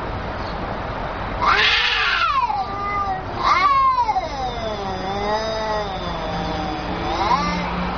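Two angry cats yowling at each other in a standoff: long, wavering caterwauls that rise and fall in pitch without a break. Two louder, higher wails come at about a second and a half and three and a half seconds in, followed by lower, drawn-out moaning.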